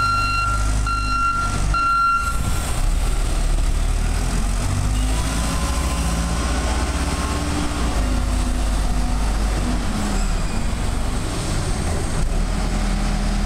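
Diesel engine of a large Taylor forklift running as it backs up and turns, its engine note rising and falling. Its reversing alarm beeps about once every 0.7 s and stops about two seconds in.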